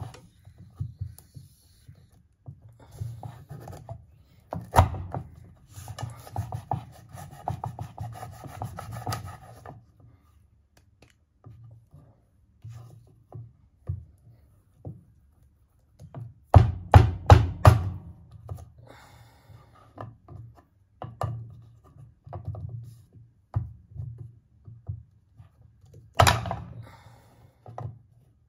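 Kitchen knife cutting raw chestnuts on a wooden cutting board: irregular knocks of the blade against the board, a long rasping stretch as the blade saws through a hard shell, and a quick run of sharp knocks about halfway through.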